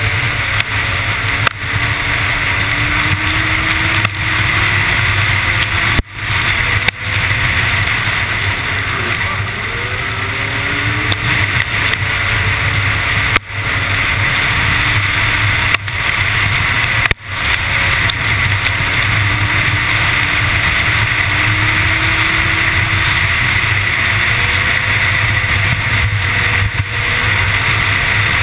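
Snowmobile running at high speed: a steady drone from its engine under loud wind rush on a helmet-mounted camera, the engine pitch drifting slightly up and down. The level dips sharply for a moment several times.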